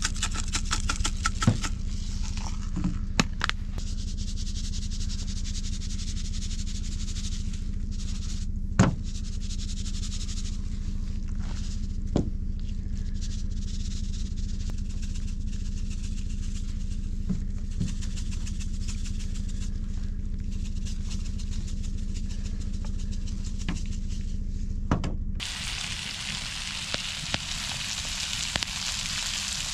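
A steady low hum with a few sharp clicks and taps while pheasant breasts are handled and seasoned from a shaker bottle. Near the end it cuts suddenly to a steady sizzle: pheasant breasts and sliced potatoes frying in a cast-iron skillet over a campfire.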